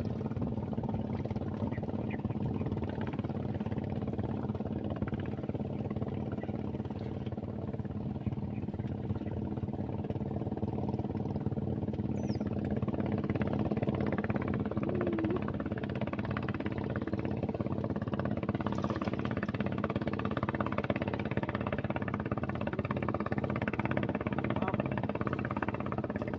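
Small boat engine running steadily at a constant speed, with an even, unbroken drone.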